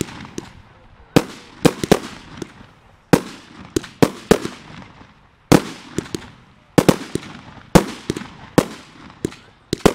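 Aerial fireworks bursting: a rapid run of sharp bangs, about one to two a second and sometimes in quick pairs, each trailing off in a fading echo.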